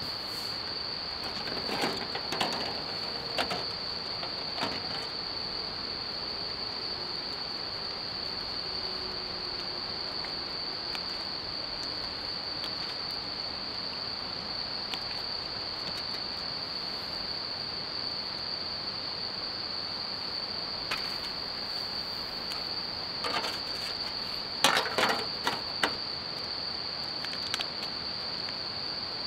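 Night insects, likely crickets, singing one steady high-pitched note without a break. A few clinks and rustles of a cooking pot and foil being handled come about two to five seconds in and again near the end, the loudest of them about twenty-five seconds in.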